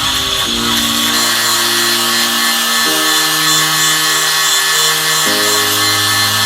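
Background music with slow chords that change about every two and a half seconds, over the steady hiss of a power tool running.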